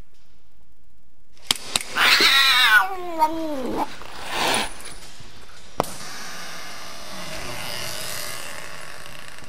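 Two sharp clicks, then a door hinge creaks in a long wavering squeal that falls in pitch over about two seconds. A short rush of noise and another sharp click follow.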